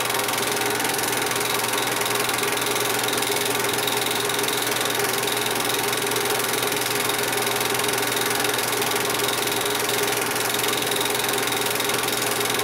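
8mm film projector running: a steady, unbroken mechanical whirr with a constant hum under it.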